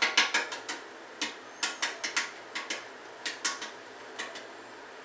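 Boiled egg being tapped against a stainless steel sink to crack its shell: a quick run of sharp cracking taps that grow fainter and sparser, stopping a little after four seconds in.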